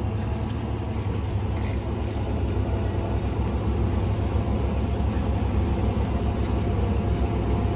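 Tractor engine running at a steady speed, a constant low drone, with a few faint clicks over it.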